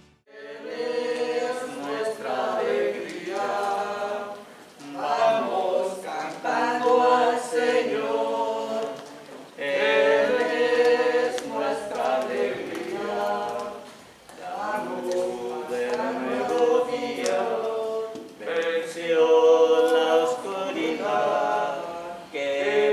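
A church choir singing a hymn in phrases of about four to five seconds, with short breaks between them. The hymn is sung just before the Mass opens, as an entrance hymn.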